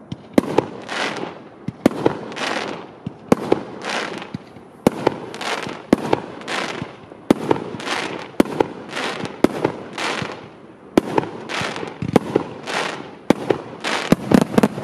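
A fireworks compact cake of 47 shots in 30 and 50 mm calibres firing in sequence. Sharp launch reports come mostly in pairs about once a second, each followed by a short rushing burst. A quick flurry of shots comes near the end.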